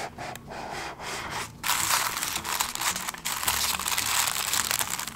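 Tissue-paper wrapping crinkling and rustling as it is pulled open in a gift box, getting much louder about a second and a half in.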